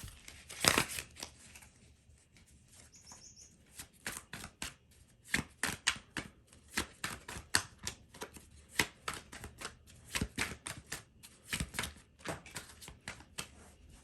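Tarot deck being shuffled by hand: a run of sharp card flicks and slaps, several a second, starting about four seconds in.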